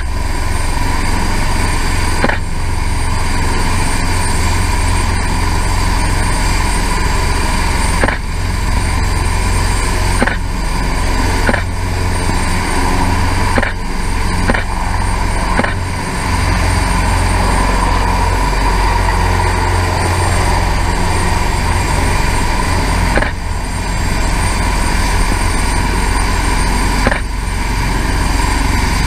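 Airbus Helicopters H225M twin-turboshaft helicopters running on a ship's flight deck, a steady loud turbine and rotor noise with a deep rumble, as one of them lifts off into a hover.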